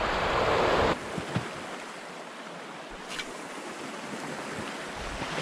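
Sea surf surging and washing over rocks, with wind rumbling on the microphone. About a second in it cuts off abruptly to a quieter, steady wash of sea.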